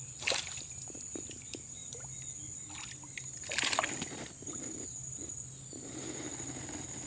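Water sloshing and splashing at a riverbank, with two louder splashes, one just after the start and one about three and a half seconds in, and small knocks in between, over a steady high insect drone.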